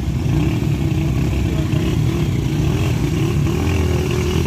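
Several motorcycle and scooter engines running together at low revs, their pitch wavering up and down as the bikes crawl through mud and gravel.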